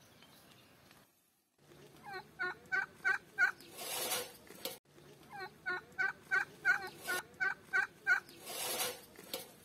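Domestic turkey calling: a run of about five short calls at roughly three a second, then a longer run of about nine. Each run is followed by a brief burst of hissing noise.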